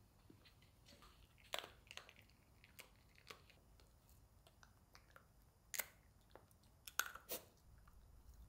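Small dog chewing a hard stick-shaped treat: irregular sharp crunches as it bites down, the loudest a little after a second in and a cluster near the end.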